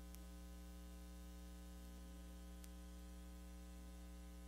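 Faint, steady electrical mains hum with a stack of overtones, the only sound present.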